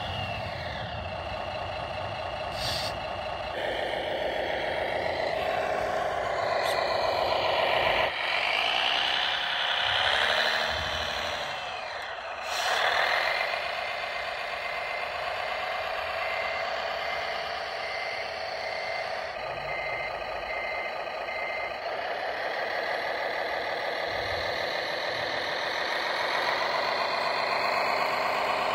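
Radio-controlled model New Holland tractor driving, its motor and drive giving a steady mechanical whine whose pitch rises and falls with the throttle, most sharply around the middle.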